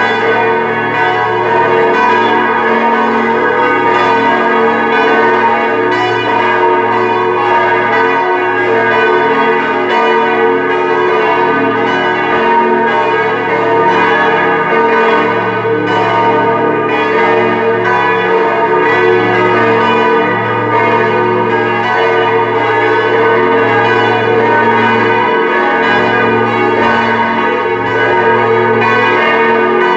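Full peal of four Grassmayr church bells tuned B♭, E♭, G♭ and A♭, all swinging together in a continuous overlapping ringing: the call to mass.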